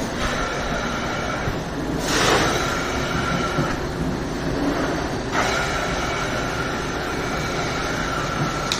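Rug-cleaning equipment running: a steady mechanical rush with a high whine that drops out for a stretch in the middle. Two louder rushing surges come about two and five seconds in.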